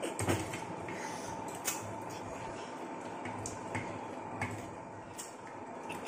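Two people eating ripe mango slices: wet sucking and chewing at the pulp, with many short smacks scattered through, over a faint steady hum.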